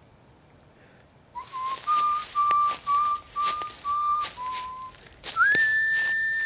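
A person whistling a simple tune. There are seven short steady notes, the last a little lower, then a slide up to a long held higher note. Sharp clicks fall in among the notes.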